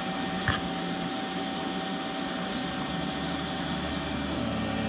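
Star SR32J Swiss-type CNC lathe running slowly, a steady machine hum with a few thin whining tones as its axes move into position. There is a short click about half a second in, and a deeper hum joins about three seconds in.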